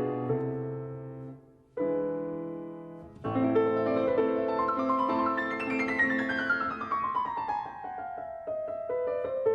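Background piano music. It breaks off briefly about two seconds in, then resumes, with a long falling run of notes in the second half.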